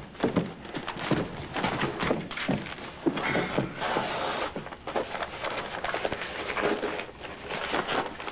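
Crickets chirping in the background, with footsteps and shuffling as two people sit down on a bench, and paper rustling as an envelope is opened.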